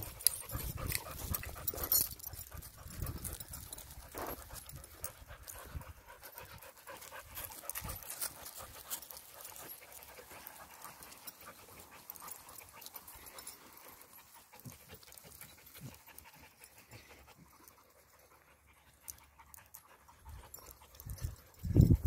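A Rottweiler panting while twigs and dry leaves rustle and crackle underfoot in brush, busier in the first half and fading later. A short low rumble comes near the end.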